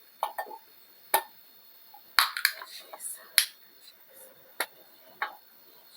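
A scattering of sharp, irregular clicks and taps, about nine in all, with short quiet gaps between them.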